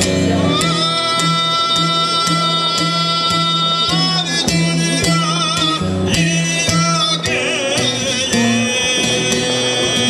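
A man sings Albanian folk song in long, high held notes with wavering vibrato. A plucked long-necked folk lute keeps up a steady accompaniment beneath him.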